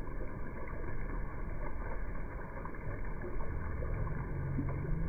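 Potato chips deep-frying in a large wok of oil: a steady, muffled sizzle, with oil draining off a wire strainer of chips.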